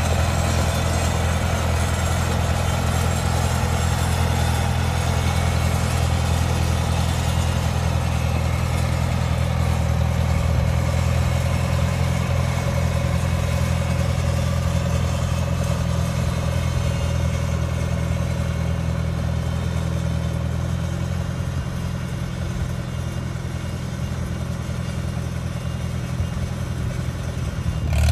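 A 1957 Farmall 350 tractor's four-cylinder engine running steadily at low throttle with a low, even note as the tractor is driven slowly. It grows slightly quieter in the last several seconds.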